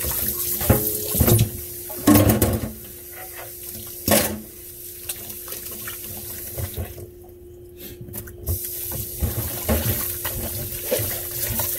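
Kitchen tap running into a sink, with several sharp knocks of kitchenware in the first few seconds. The water stops for about a second and a half around seven seconds in, then runs again, over a steady low hum.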